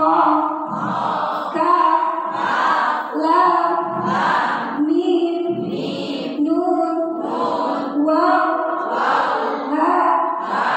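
Women's voices chanting the names of the Arabic hijaiyah letters together in a sing-song melody, one short syllable after another, as a recitation drill.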